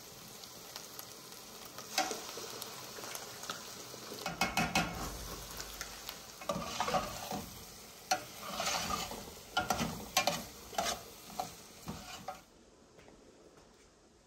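Diced meat frying and sizzling in a metal pot with tomato paste and spices, stirred with a metal spoon that scrapes and clicks against the pot. The sizzling and stirring stop suddenly near the end.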